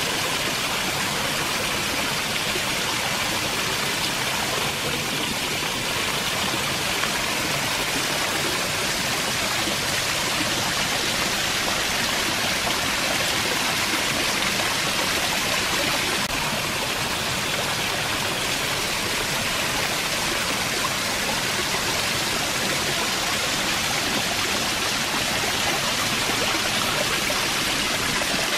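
Small waterfall, running full after rain, pouring off a rock ledge and splashing into a shallow pool: a steady, even rush of falling water.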